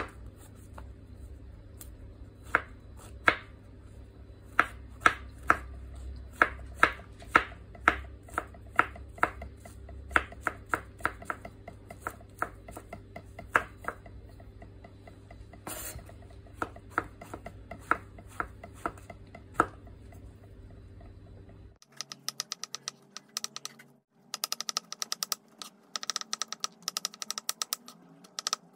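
Knife chopping button mushrooms on a wooden cutting board: sharp taps about two a second. About 22 seconds in comes a faster run of chopping as the mushrooms are minced fine.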